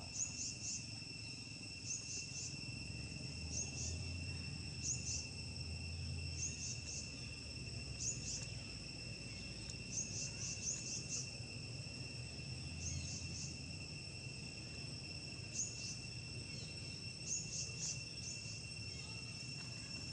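Forest insects droning steadily at a high pitch, with short high chirps repeating in quick little clusters every second or two.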